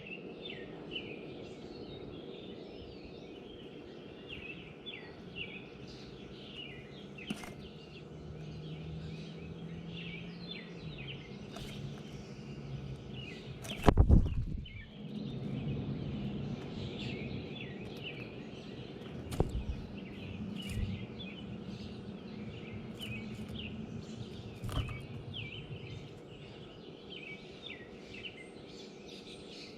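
Small songbirds chirping again and again at a feeder, over a steady low background rumble. There is one loud thump about halfway through and a few lighter knocks after it.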